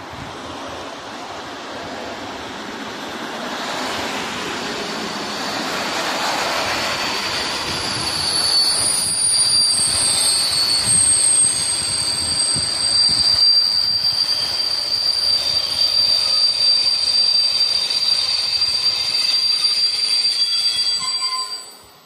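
An electric passenger train of double-deck coaches passes close by, its running noise growing louder over the first few seconds. A steady high squeal rides over the rumble from about five seconds in, and the sound cuts off suddenly just before the end.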